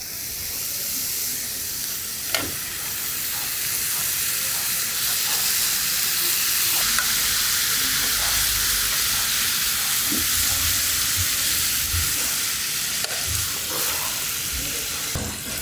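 Thin slices of marbled beef sizzling steadily on a hot flat griddle, with a few light clicks of metal tongs as they are spread out.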